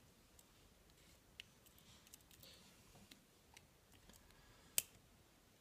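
Faint clicks of a small Victorinox Swiss Army knife being handled while its tools are pulled out, with one sharper click near the end.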